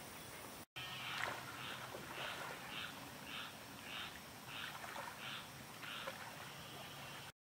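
An animal calling outdoors: a short note repeated about every half second over faint steady background hiss, starting after a brief break in the sound a little under a second in.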